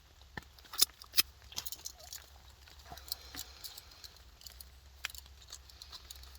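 Scattered light clicks and taps of food and cooking gear being handled while fried Spam slices are plated and pushed into a pita bread, with two sharper clicks about a second in.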